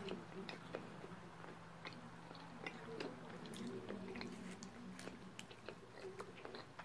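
A person chewing a soft fruit chew candy close to the microphone, with a scatter of short clicks from the mouth.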